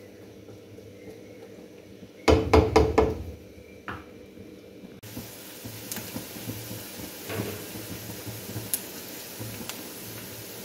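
A quick clatter of about five knocks from a spatula tapped against a nonstick karahi, with one more knock a second later. Then chopped onions frying quietly in oil, a faint sizzle with small crackles.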